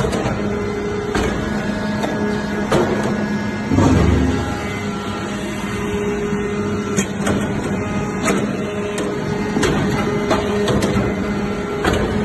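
Metal chip baler running: a steady machine hum with irregular metallic clicks and knocks, and one heavier low thump about four seconds in.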